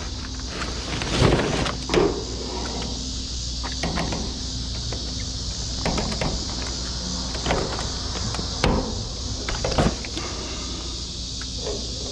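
Irregular knocks, clatters and rustles, about one every second or two, over a steady low hum and hiss.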